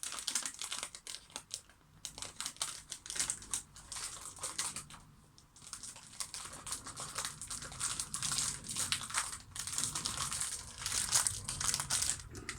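Plastic packaging crinkling and rustling as a speedcube is unwrapped by hand, an irregular crackle with a brief lull about halfway through.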